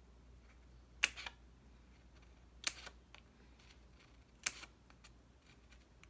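Small scissors snipping slits into the punched ring holes of a paper planner insert: three sharp snips, roughly one every one and a half to two seconds.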